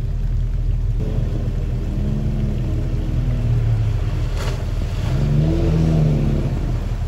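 Jeep Cherokee engine revving as it pushes through deep floodwater, rising and falling twice over a steady low rumble, loudest near the end.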